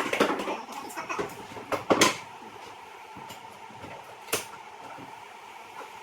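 Several knocks and scrapes, the loudest at the start and about two seconds in, with a single sharp knock a little past four seconds, over a faint steady hum.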